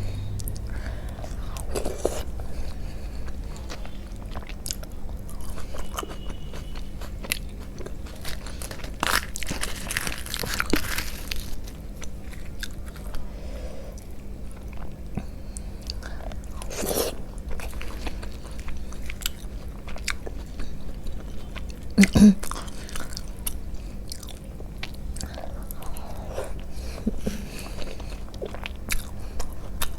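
Close-miked eating sounds of a person chewing and biting soft food, with wet mouth clicks and smacks scattered throughout. One sharper knock, likely utensil or plate, comes about two-thirds of the way in, over a steady low hum.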